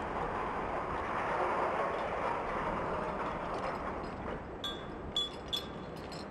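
Steel links and fittings of a GrabiQ chain sling clinking as they are handled: three short ringing metallic clinks about three-quarters of the way in, over a steady rush of outdoor background noise.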